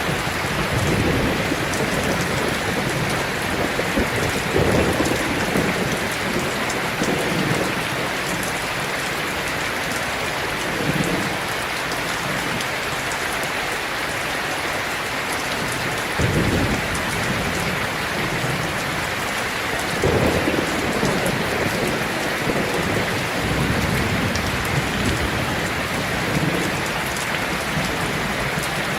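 Heavy rain drumming steadily on a tin roof, with low rumbles of thunder swelling and fading every few seconds, the strongest about 16 and 20 seconds in.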